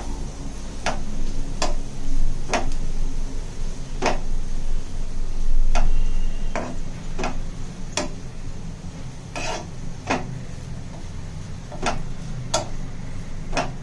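A cooking utensil tapping and knocking against a pan as onion and dried coconut are stirred in oil: about a dozen sharp knocks at uneven intervals over a steady low hum.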